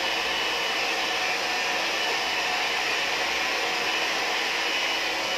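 Hair dryer running steadily: a constant, even rushing hiss.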